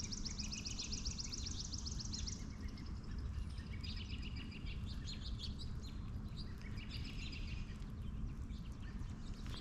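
Songbirds singing: a fast high trill for the first two seconds, then shorter chirping phrases about four and seven seconds in, over a steady low outdoor rumble.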